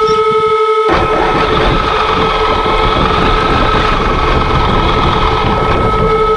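Traxxas X-Maxx RC truck's brushless electric drivetrain heard from on board. A steady high whine comes from the motor and speed controller, then about a second in the truck drives off and a dense rumble of gears and tyres on packed snow takes over.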